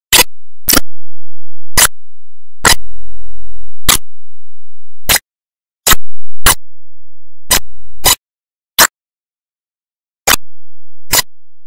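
A dozen or so sharp, loud clicks at uneven intervals, roughly one a second, with nothing else between them.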